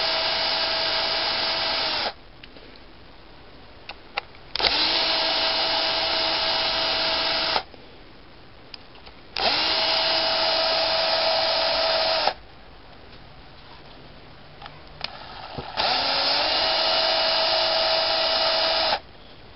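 Electric drill-driver running in four steady bursts of about three seconds each, backing out the four screws of a Caster differential case. The first burst is already running at the start and stops about two seconds in. A few light clicks fall in the gaps between the bursts.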